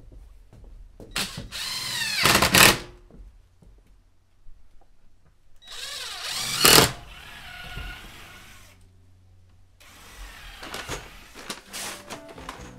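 Cordless drill run in three bursts, its whine sliding in pitch as the motor speeds up and winds down.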